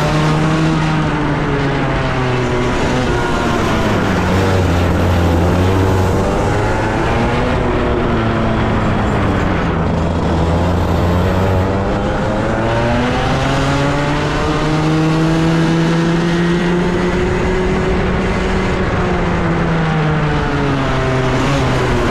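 A 125cc racing kart engine at full throttle, heard from the driver's seat. Its pitch drops twice in the first half as the kart slows for corners, climbs on the following straight, then falls again and picks up near the end.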